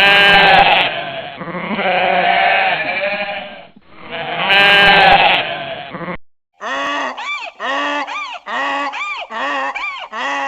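Three long, wavering bleats from a farm animal. After a brief cut, a little past halfway, a goose starts honking rapidly, about two short honks a second.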